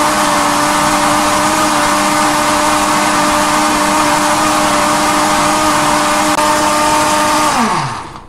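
Countertop blender motor running at full speed with a steady whine, blending banana, orange and frozen red berries with a little water into a smoothie. Near the end it is switched off and winds down, its pitch falling quickly to a stop.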